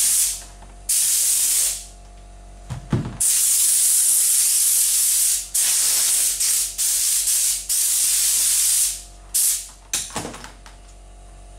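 Compressed-air blow gun hissing in a series of bursts, some under a second and the longest several seconds, as it blows dust off engraved birch plywood. A low hum is heard in the pauses between blasts.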